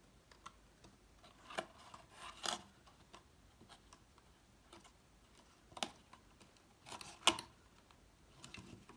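Cardstock handle and hinge pieces being fitted together with a brad fastener: a few scattered sharp clicks and paper rustles, the loudest click about seven seconds in.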